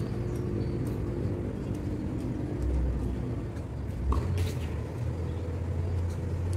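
Steady low hum of a running engine, like a vehicle idling, with a brief sharp sound about four seconds in.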